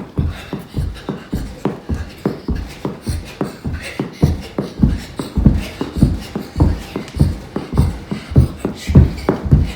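A child jumping rope on a hard floor: an even rhythm of low thuds, about two to three a second, as the rope and feet strike the floor on each jump.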